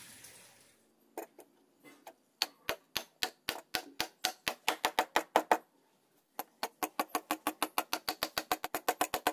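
Wooden mallet knocking the two halves of a wooden L joint together, a series of sharp wooden knocks. A first run speeds up to about four knocks a second, stops briefly just past the middle, then a second, quicker run follows.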